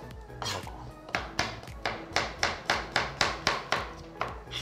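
A kitchen knife chopping pumpkin for jam, a steady run of strokes about three a second that starts about a second in.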